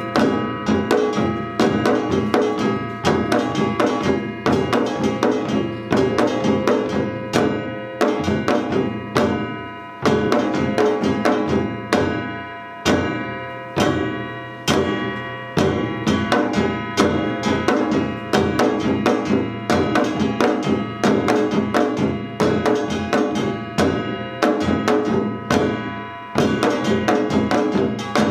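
Samul nori ensemble playing a Yeongnam rhythm: a kkwaenggwari small gong clangs and rings over janggu hourglass drums and buk barrel drums in a dense, fast, driving pattern with regular heavy accents.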